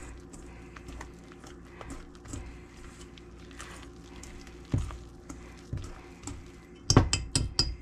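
Wire whisk stirring flour into creamed butter and sugar in a stainless steel bowl, with soft scraping and light ticks. Near the end, a quick run of sharp metallic clinks as the whisk knocks against the bowl.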